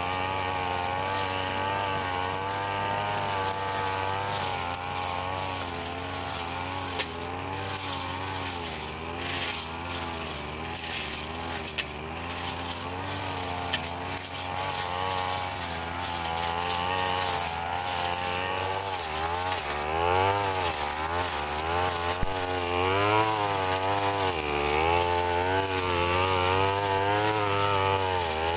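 Brush cutter engine running under load while cutting grass, its pitch rising and falling as the throttle and cutting load change, with the swings growing faster and wider in the second half.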